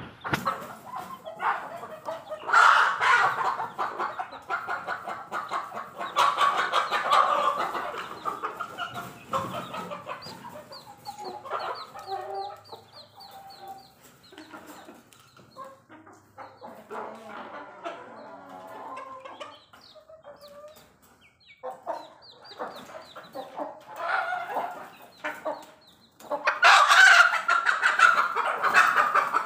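Caged chickens clucking, with three loud, drawn-out calls, one near the start, one a few seconds later and one near the end. In between comes a run of rapid, high peeps from chicks.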